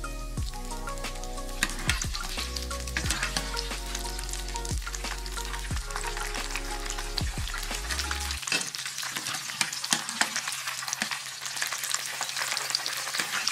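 Breaded mozzarella balls deep-frying in hot oil: a steady sizzle with many sharp crackles and pops.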